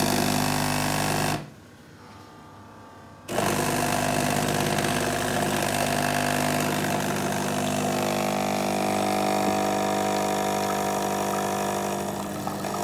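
Oster espresso machine's pump running with a steady hum as it brews a double shot of espresso. It cuts out about a second and a half in, for about two seconds, then starts again and runs on steadily.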